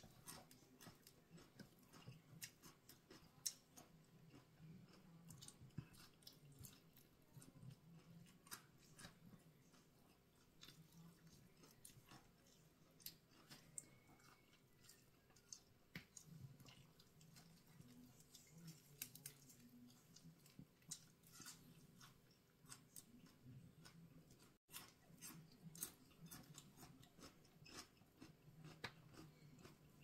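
Faint eating sounds: a person chewing spicy grilled pork salad with raw vegetables, with many small irregular clicks, over a low steady room hum.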